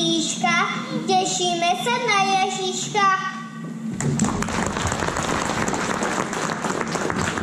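A young boy singing into a microphone, his voice stopping about three and a half seconds in; applause then fills the rest.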